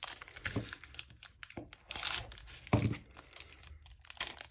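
Trading-card pack wrapper being torn open and crinkled by hand: a string of quick rips and rustles, loudest about two and three seconds in.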